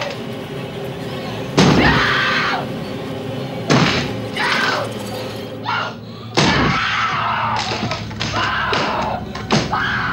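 Axe blows chopping through a wooden door: about four heavy splintering strikes a couple of seconds apart. A woman screams in terror between the blows.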